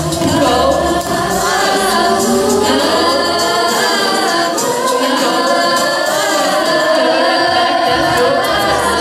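Group of young girls singing together into microphones, several voices at once. The low bass under the voices drops away about three and a half seconds in and returns near the end.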